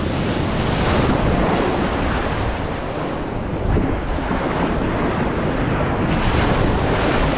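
Breaking ocean surf washing and hissing around a kayak, with wind buffeting the microphone as a low rumble.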